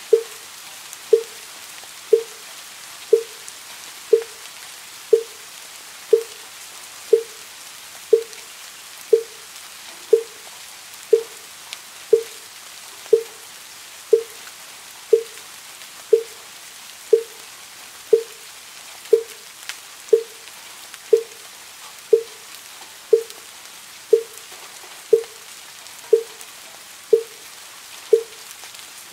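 Wooden fish (muyu), a Buddhist temple block, struck at a slow steady pace of about one short knock a second, over a steady patter of rain.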